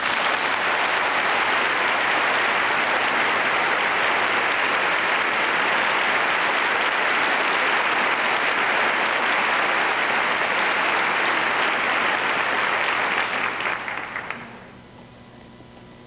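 Theatre audience applauding, a dense even clapping that thins to scattered claps and stops about fourteen seconds in.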